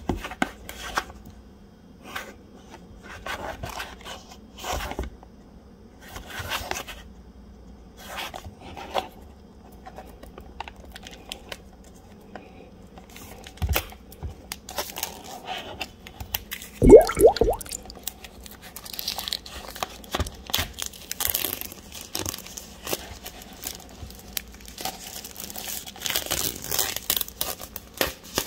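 Clear plastic shrink-wrap being torn and peeled off a small cardboard box, crinkling in short bursts among the clicks of fingers handling the box. A brief, louder squeak of stretched plastic comes about two-thirds of the way through, and the crinkling grows denser near the end.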